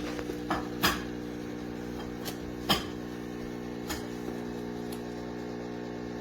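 Espresso machine pump running with a steady, even hum, with a few sharp clicks and knocks over it, the loudest near the start and about two and three quarter seconds in.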